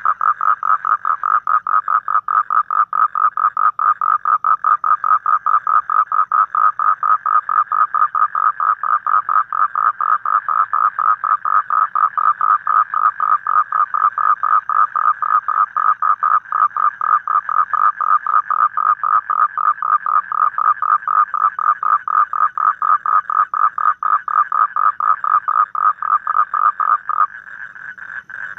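Toad calling: a loud, steady trill of rapid pulses, about four or five a second. Near the end the pulsed call breaks off, leaving a fainter call.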